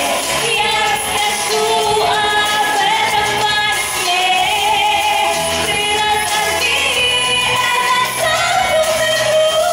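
A woman singing a solo vocal into a handheld microphone over accompanying music, with held notes that glide in pitch.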